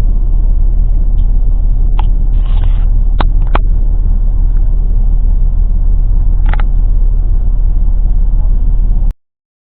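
Loud, steady low rumble with a few brief clicks over it; it cuts off abruptly near the end.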